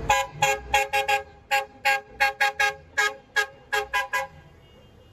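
A bus's multi-tone air horn sounding about fifteen short toots in an uneven rhythm over four seconds, then stopping.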